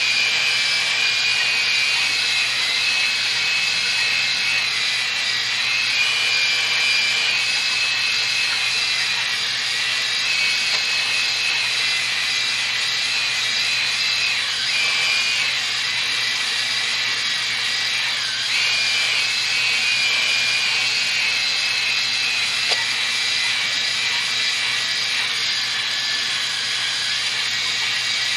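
Cordless drill spinning a stone cylinder hone up and down inside a cylinder bore of a cast-iron 5.7 Vortec small-block V8, the bore wet with WD-40. It makes a steady high whine over the hiss of the stones grinding the wall, and the pitch wavers slightly and dips briefly twice midway. The honing cleans up the cylinder walls and leaves a cross-hatch.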